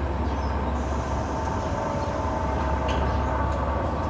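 KiHa 150 diesel railcars pulling away from a station, the diesel engine running under load with a steady low rumble and a few steady whining tones. A light click comes about three seconds in.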